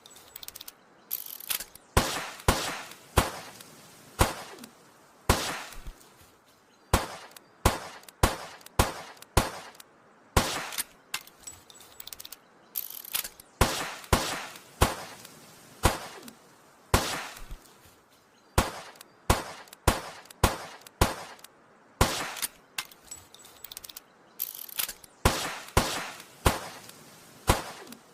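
Old revolver shots fired one after another at an irregular pace, some in quick pairs, each a sharp crack with a short decaying tail.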